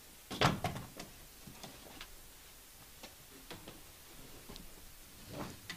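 Handling noise from a ball draw: a rustle and knock about half a second in, then scattered light clicks and taps, with another rustle near the end.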